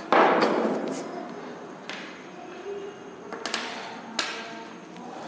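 A loud thud with a fading rustle right at the start, then a few light taps and clicks: objects being put down and handled on a table.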